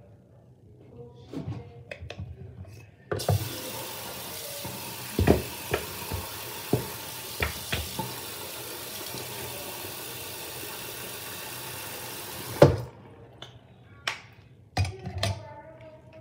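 Bathroom sink tap turned on, water running steadily for about ten seconds with sharp clicks of things handled at the sink, then shut off with a loud knock. A few more knocks and clicks follow near the end.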